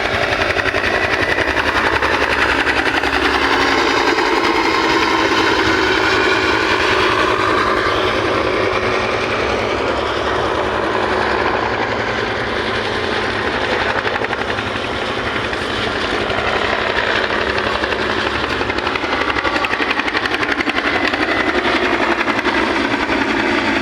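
Helicopter running close by: a loud, steady engine and rotor noise, with its pitch drifting slowly.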